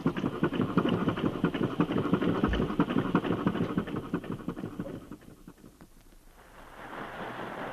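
Radio sound effect of a small motorboat's engine chugging in a rapid, even putt-putt, fading out about five seconds in. A steady rushing noise comes up near the end.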